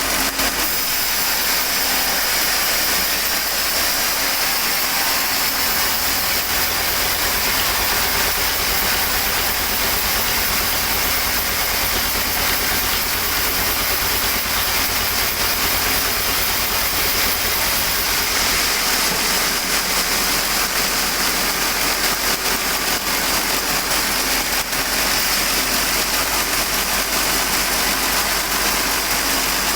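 Sawmill machinery running steadily, with a constant low hum under a dense high hiss.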